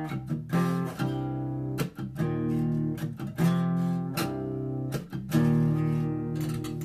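Ibanez AW200 acoustic guitar in open C tuning (C G C G C E) playing a rhythmic riff: chords strummed in short groups, each left to ring between strokes, with a last chord about five and a half seconds in held and ringing out.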